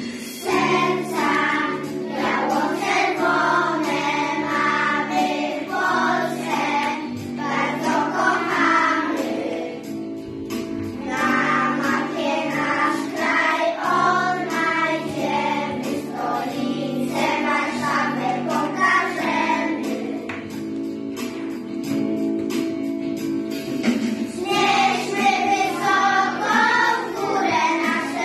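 A group of young children singing a song together over an instrumental accompaniment.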